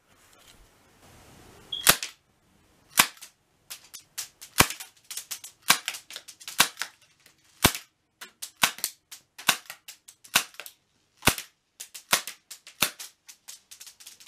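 Glock 19 BB pistol firing a full magazine into an iPhone 6 screen, the BBs cracking the glass. It sounds as a string of over twenty sharp cracks, the first about two seconds in, then irregularly spaced shots until near the end.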